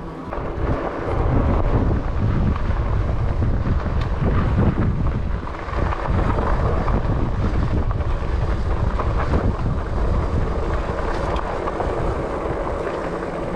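Wind buffeting an action camera's microphone on a moving e-bike: a steady, rumbling roar that swells about a second in.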